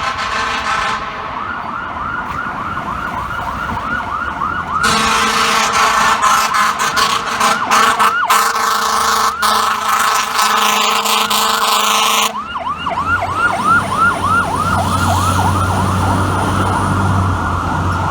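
FDNY fire truck's electronic siren yelping in rapid sweeps, about four a second. About five seconds in, a long continuous air-horn blast comes in over it, the loudest part, and cuts off after about seven seconds. The siren yelps on, with a low engine rumble under it near the end.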